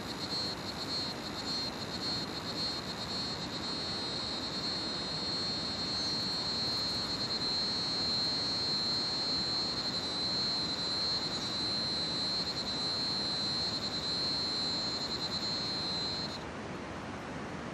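Crickets trilling in a continuous high, steady buzz, pulsing for the first few seconds, over the steady rush of a river. The trill stops abruptly about sixteen seconds in, leaving only the river.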